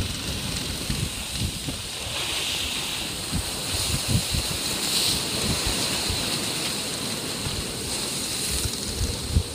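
Wind buffeting the microphone in irregular low gusts over a steady hiss of sea water rushing and breaking along the hull of a sailboat under way in rough seas.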